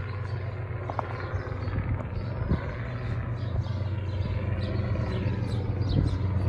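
A steady low engine-like drone, with short high bird chirps coming in over it in the second half.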